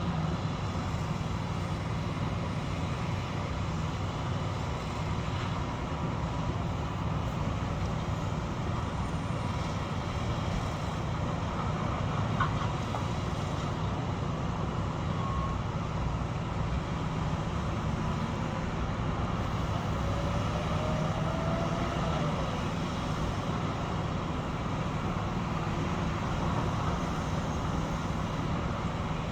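Heavy construction machinery with diesel engines running, a steady low drone that holds at an even level.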